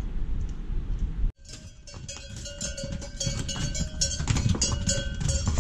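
Low wind rumble on the microphone that cuts off abruptly about a second in, then the bells on laden pack mules ringing steadily as the mules walk past, with sharp hoof clops on the stony path.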